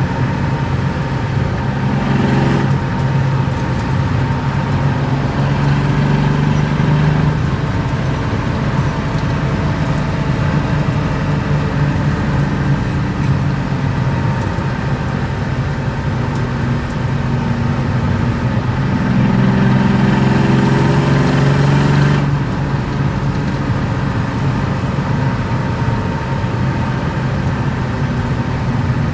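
BMW E36 325i's M50B25 2.5-litre straight-six, with aftermarket headers and exhaust, running under way as heard from inside the cabin. The engine note rises and falls with the throttle, with a brief louder moment about two seconds in and a louder pull for about two seconds around twenty seconds in before it drops back.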